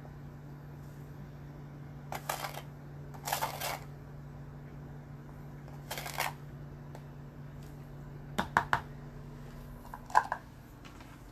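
Red plastic measuring cup scooping, scraping and pouring granulated sugar in several short rustling bursts, then a few sharp clicks of plastic measuring cups being set down near the end.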